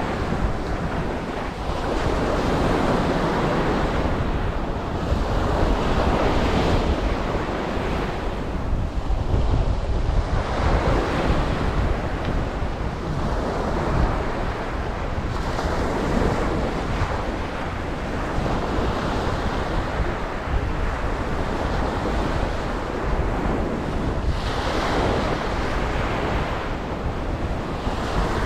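Ocean waves breaking on a beach, a steady rush of surf that swells and eases every few seconds, with wind buffeting the microphone.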